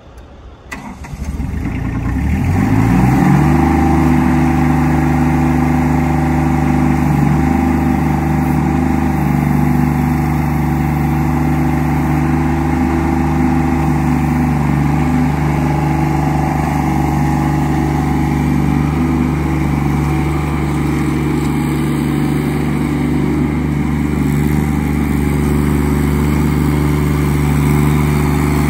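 Dingo K9-4 mini loader's 27 hp Yanmar diesel engine starting. It catches about a second in and climbs in pitch over the next two seconds, then runs at a steady speed.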